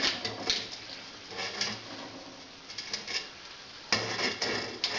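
Metal stove parts clinking and scraping as they are fitted and tightened together, with a sharp knock about four seconds in.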